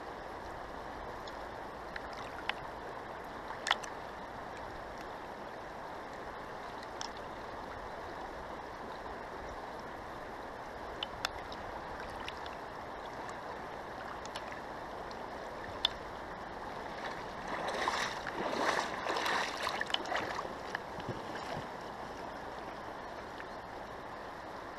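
Fast-flowing river rushing steadily, with a few sharp ticks scattered through and a louder, choppy spell of noise lasting about three seconds from about eighteen seconds in.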